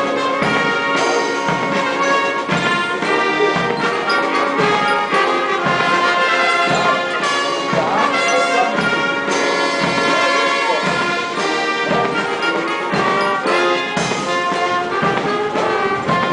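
Military band playing a march, with trumpets and trombones carrying the tune.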